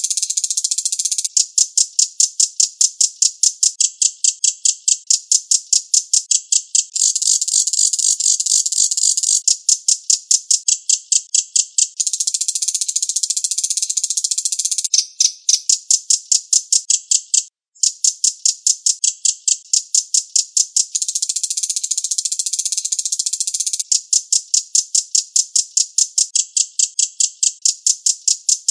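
Reno songbird singing a fast, high-pitched rattling trill of rapidly repeated notes, in long phrases broken by short pauses, with one brief silence about two-thirds of the way through.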